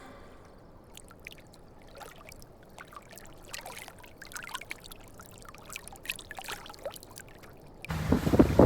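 Water trickling and splashing softly, with many small scattered splashes. Near the end, loud wind noise on the microphone cuts in suddenly.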